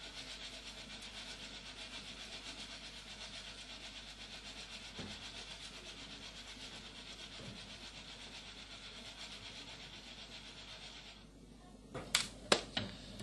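A steady hiss with a fast, even flutter, then a few sharp clicks near the end as a hand handles small objects in a container.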